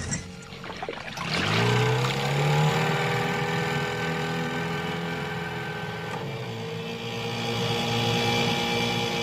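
Cartoon toy boat's motor sound effect: it starts about a second and a half in, rises briefly in pitch, then runs at a steady drone.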